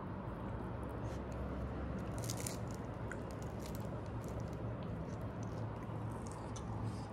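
Crisp, flaky paratha-dough crust of an egg tart crackling and crunching as it is broken apart by hand, in a series of short irregular crackles, the loudest cluster about two seconds in. A steady low hum runs underneath.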